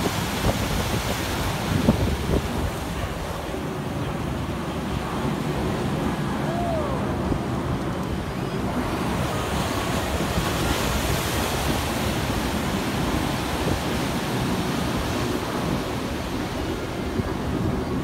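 Ocean surf breaking and washing in a steady rush, with low wind rumble on the microphone.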